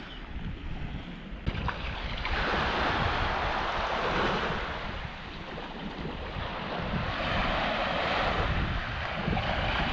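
Small waves washing up on a sandy beach, swelling and fading twice, with wind buffeting the microphone in a low rumble.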